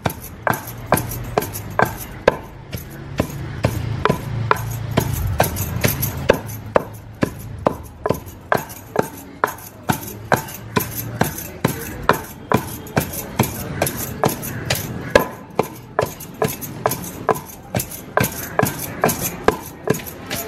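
Steady, regular knocks of food being struck by hand while chutney is prepared, about two to three sharp strikes a second.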